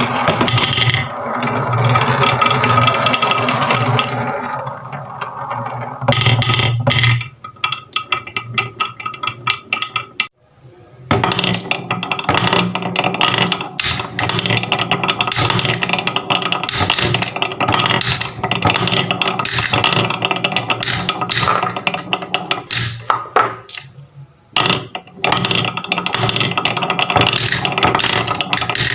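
Many marbles rolling and clattering down a wooden marble run, with a dense stream of clicks and a steady rolling ring. The clatter thins to scattered clicks for a few seconds about a quarter of the way through, then builds up again.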